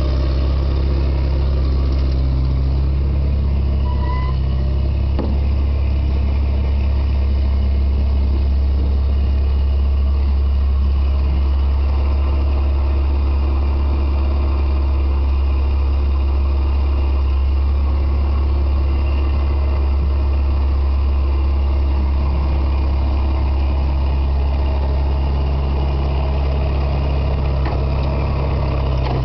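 Engine of an ASV Posi-Track compact track loader running steadily with a deep, even hum while it plows snow with its front blade.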